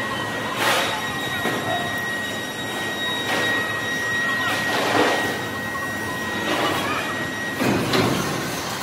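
Factory machinery running: a dense mechanical noise with a steady high whine, and five louder noisy bursts spread through it.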